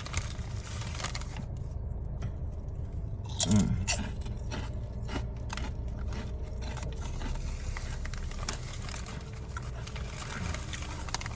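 Mouth crunching and chewing Ruffles Flaming Hot BBQ ridged potato chips, with many short, sharp crunches through the whole stretch over a steady low rumble. A brief voiced sound comes about three and a half seconds in.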